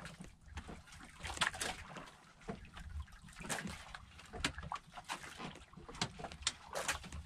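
A wet fishing handline being hauled in hand over hand over the side of a boat with a hooked fish pulling on it: short swishes and splashy drips coming irregularly, over a low steady rumble of water against the hull.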